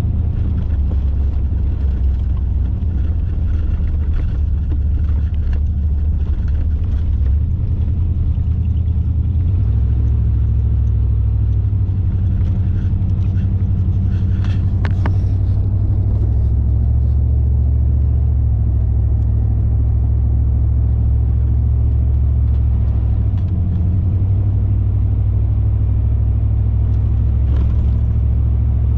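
A car being driven, with a steady low rumble of engine and road noise that shifts in pitch a few times, and a brief click about halfway through.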